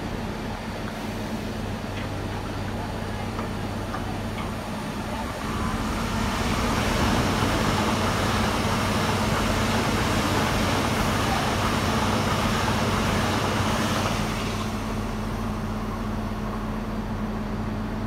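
HLB electric multiple-unit passenger train passing close by on the station tracks: a steady low hum with the rumble and hiss of wheels on rails that swells about five seconds in, holds, and eases off a few seconds before the end.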